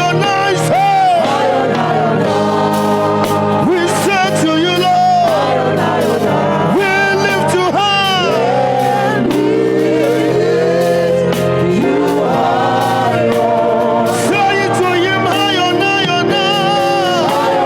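Gospel worship singing: voices sing a slow praise song over sustained keyboard chords, with gliding, drawn-out melodic runs.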